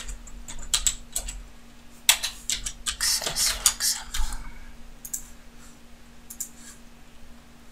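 Computer keyboard typing in short bursts of keystrokes, thinning to a few scattered clicks in the last few seconds.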